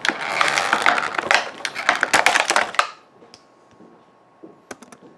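Clear plastic blister packaging crinkling and crackling as it is handled to free a small toy ball, with many sharp clicks. It stops about three seconds in, leaving a few faint ticks near the end.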